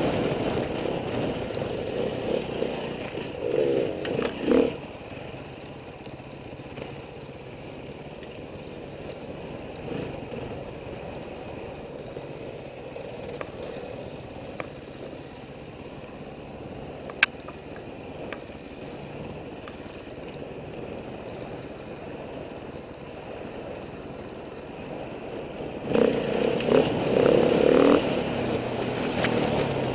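Enduro dirt bike engine heard through a helmet-mounted camera, revving in bursts near the start and again from about 26 seconds in, running at low revs in between. A single sharp click about 17 seconds in.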